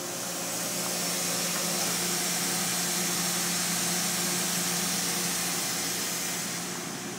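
Spindle of a Makino S56 vertical machining center running, with a steady low hum and a high hiss that swells about a second in and eases off near the end.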